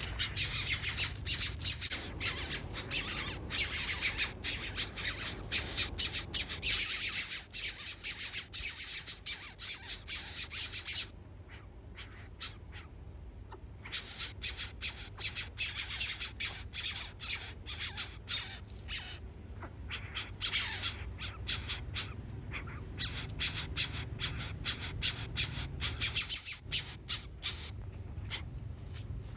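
Nestling birds of prey giving rapid, high-pitched begging squawks, many short calls in quick succession, over a low steady rumble. The calling stops about eleven seconds in, starts again a few seconds later, and thins out near the end.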